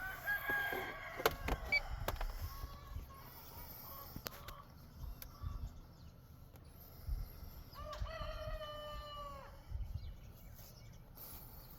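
A rooster crowing once in the background, about eight seconds in, a single drawn-out call of nearly two seconds that drops in pitch at the end, over faint clicks.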